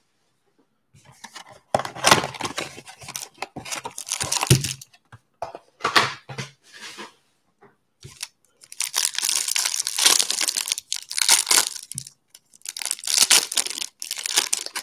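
A cardboard Panini Mosaic hanger box of trading cards being torn open, then the plastic wrapper around its stack of cards being torn and crinkled, in several bursts of ripping with short pauses between.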